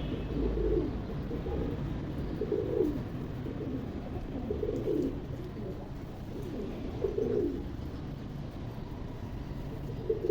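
Pigeons cooing: a low coo phrase repeated about every two seconds.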